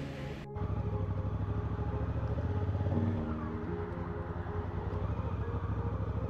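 Motorcycle engine running steadily at low speed, recorded from on the bike. It starts abruptly about half a second in.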